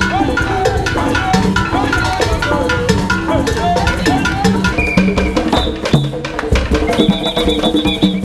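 A group of hand drummers playing a fast, steady rhythm on tall wooden hand drums, with a melody over the beat.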